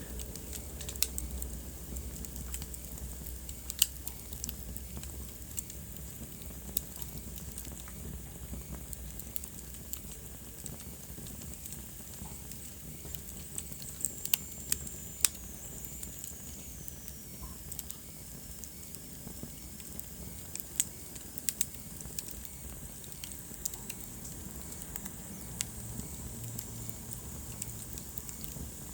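Wood fire in a fireplace crackling, with irregular sharp pops over a soft steady hiss. A thin high whistle slowly falls in pitch about halfway through.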